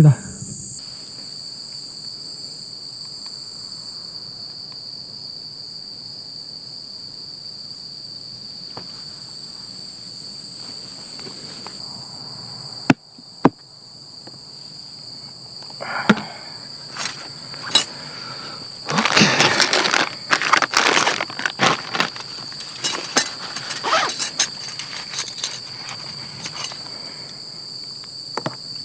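Crickets trilling steadily and high-pitched. From about halfway through, irregular clicks, knocks and rustles of camping gear being handled come over the trill, bunched up around two-thirds of the way in, as a camp light is set up.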